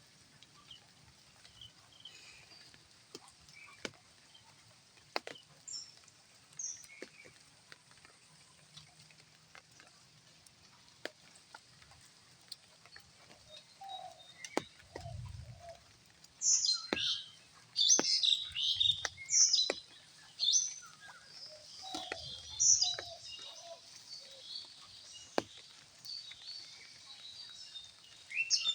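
Birds chirping in short high calls, sparse at first and busy through the second half, with scattered sharp clicks and a few low thumps.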